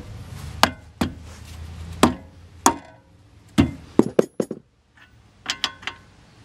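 Sharp knocks and metallic clinks on a bolt-on wheel spacer as it is seated on the hub, a few at uneven intervals, then a quick cluster of clinks near the end.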